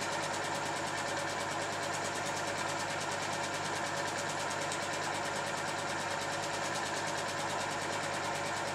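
Film projector running: a steady mechanical whirr with a rapid, even clatter from its film-advance mechanism.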